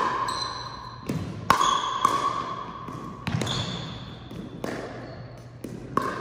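A ball being hit back and forth in a rally: about five sharp hits, one every second or so, each with a short ringing ping. Two of the hits are softer than the rest.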